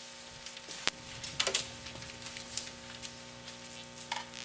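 Room tone with a steady hum, broken by a few short clicks and knocks: one sharp click about a second in, a quick cluster of knocks just after, and fainter ticks near the end.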